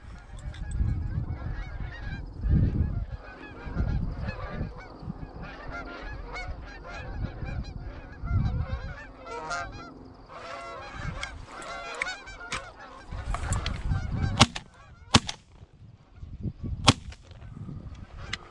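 A large flock of Canada geese honking overhead and around the decoys, many calls overlapping without a break, with low rumble on the microphone at times. A few sharp clicks sound near the end.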